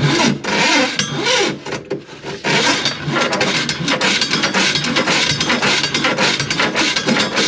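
Loud rattling and scraping full of quick clicks from work on the grease-clogged drain line, easing off briefly about two seconds in.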